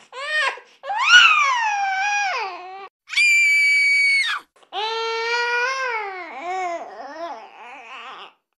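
A high-pitched voice crying and wailing in long, sliding cries, with one flat, held high note about three seconds in, trailing off and fading near the end.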